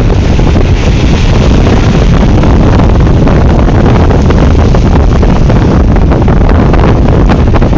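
Strong gale-force wind buffeting the microphone: a loud, steady rumbling roar with constant crackle and pops, overloading the recording.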